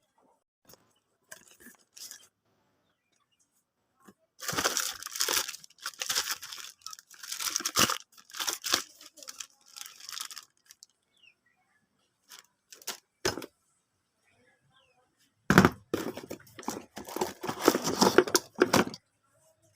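Bursts of crackling, tearing and crunching, as of tree branches and leaves being broken up. Two long spells of it come a few seconds in and again near the end, with quiet gaps between.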